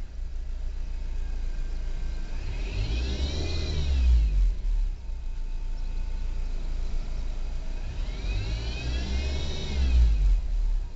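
Car engine running and revved twice, a few seconds in and again near the end. A high whine rises and falls with the engine speed each time, the kind of noise the owner suspects comes from a worn bearing in an engine accessory.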